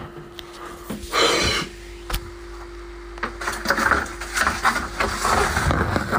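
Things being shifted and handled behind a fridge: a scrape about a second in, a sharp knock, then a run of clatter and scuffing, over a steady hum.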